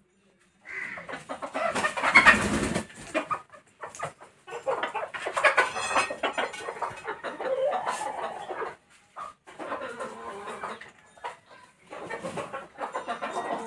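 Chickens clucking in irregular runs, starting just under a second in and loudest around two seconds.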